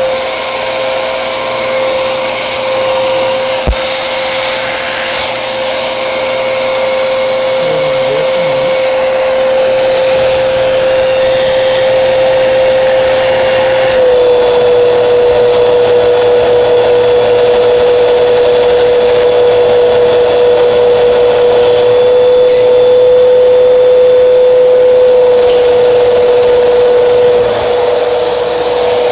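Household vacuum cleaner running steadily as it sucks pet hair and dust out of a clogged refrigerator condenser coil, a loud motor whine over rushing air. The pitch dips slightly about halfway through and shifts again later as the nozzle moves.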